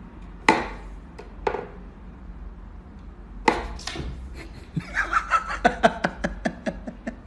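Wooden whack-a-mole cat toy knocking as its pegs are pushed and the toy mouse pops through the holes while a cat paws at it. A few separate sharp wooden knocks come first, then a quick run of clacks in the second half.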